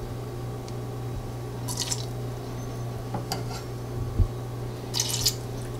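Spoonfuls of water poured from a tablespoon into a saucepan of blueberries: a short trickle and drip about two seconds in and again near the end, with small clinks of the metal spoon. A steady low hum runs underneath.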